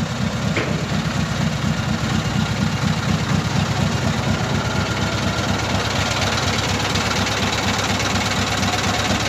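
Scania V8 truck engine idling steadily through open, straight-through exhaust pipes, a low, even rumble with no revving.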